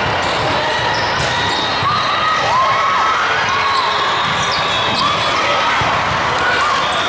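Indoor volleyball rally in a large, echoing hall: the ball is struck a few times and sneakers squeak on the sport court, over a steady din from the hall.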